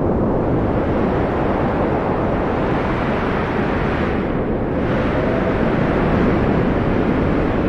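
Cold wind blowing as a steady, full rushing noise, deep and even, with a slightly hissier gust about four seconds in.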